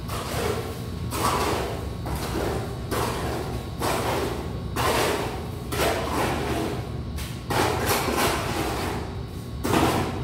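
Wet cement mortar being tipped from a bucket and scooped and slapped down by gloved hands: a series of dull, scraping thuds about once a second over a steady low hum.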